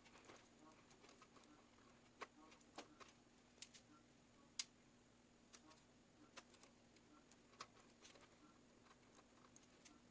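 Near silence: a faint steady low hum with scattered small clicks and taps at irregular intervals, the loudest about four and a half seconds in.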